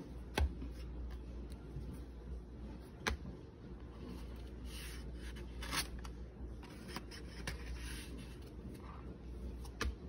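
Paper and cardstock pages of a handmade scrapbook album being handled: flaps turned and a tag slid out of a pocket, rustling and scraping, loudest around the middle. Three sharp taps as the card is set down, one near the start, one about three seconds in and one near the end.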